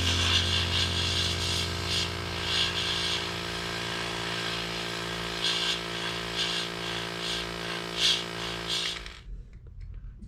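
A small electric power tool runs at a steady pitch, with repeated short bursts of grinding as it bites into the work. It shuts off about nine seconds in.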